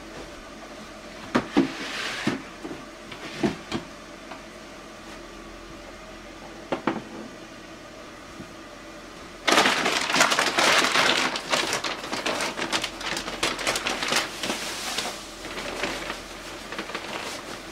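A few light knocks of plastic trays being handled, then about halfway through wheat bran starts pouring from a paper sack into a plastic tray: a dry, rustling pour with many small crackles that tapers off near the end.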